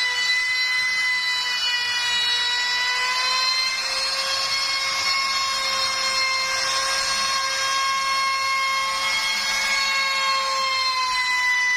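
CNC router spindle whining at a steady high pitch while its bit cuts out letter shapes. A hissing cutting noise grows stronger through the middle and eases off near the end.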